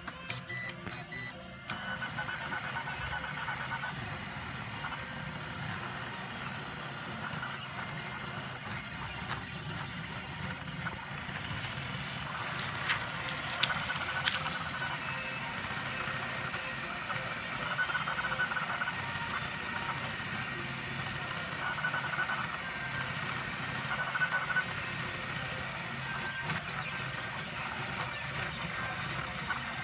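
The stepper motors of an H-bot gantry pen plotter drive the belt-driven carriage at high speed. They give a whining, buzzing sound whose pitch keeps changing with each move, and there are a few sharp clicks about halfway through. At these settings the gantry is skipping steps and slipping out of position.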